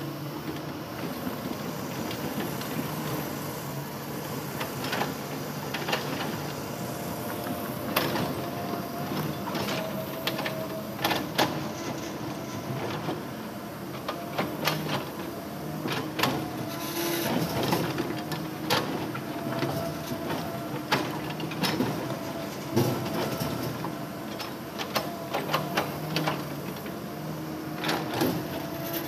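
Hitachi Zaxis 200-5G excavator's diesel engine running steadily under hydraulic load as the steel bucket digs into rocky rubble, with frequent irregular clanks and knocks of bucket against stone.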